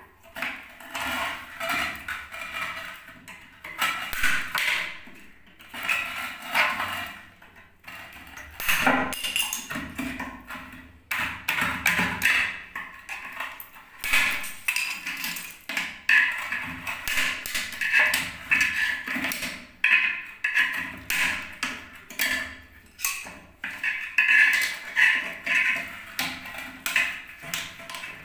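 A hammer tapping a screwdriver against the plastic nut that holds a toilet cistern's fitting, chipping and knocking it round to loosen it. The taps come in irregular runs of quick knocks with short pauses.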